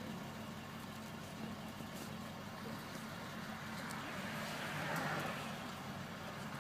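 School bus engine idling steadily, heard from inside the passenger cabin as a low, even hum. A short swell of indistinct higher noise comes about five seconds in.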